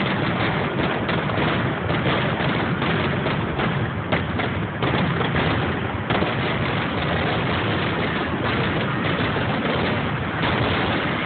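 Fireworks going off in a rapid, continuous run of overlapping bangs and crackles, with a few sharper bangs standing out about four, five and six seconds in.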